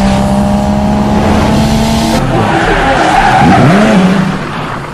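Car sound effect: a loud race-car engine at high revs with tyres squealing. Near the end the pitch dips and rises, then the sound begins to fade.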